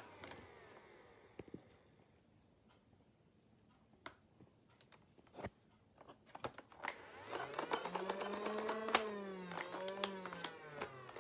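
Motorized Nerf blaster's flywheel motors spinning up with a rising whine about seven seconds in, holding, dipping once, then winding down near the end. Scattered handling clicks come before it.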